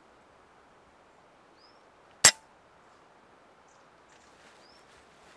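A Zbroia Hortitsia PCP air rifle firing a single shot a little over two seconds in: one sharp crack, with the pellet's strike on the rabbit following too closely to hear apart. Under it a faint steady outdoor hiss and a couple of short bird chirps.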